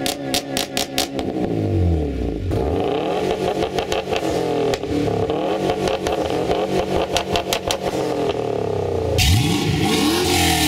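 Exhaust revs from three cars in turn: a Honda Civic coupe with an aftermarket exhaust revving with a rapid stutter, then a Subaru WRX STI's turbocharged flat-four revving in repeated blips from about 2.5 s in, then a Camaro Z28's V8 revving up and down from about 9 seconds in.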